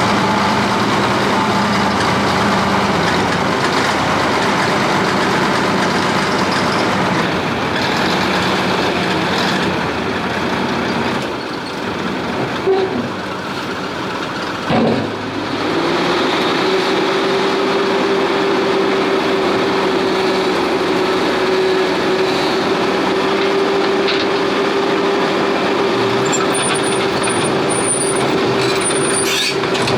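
Heavy diesel engine running steadily. About halfway through its note dips briefly, then it settles into a steady higher whine.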